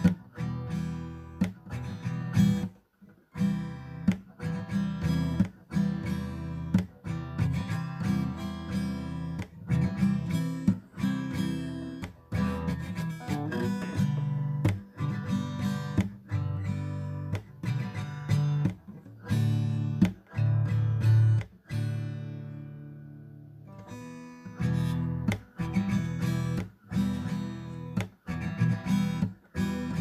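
Background music: acoustic guitar strumming chords in a steady rhythm, with one chord left to ring out and fade a little after twenty seconds in.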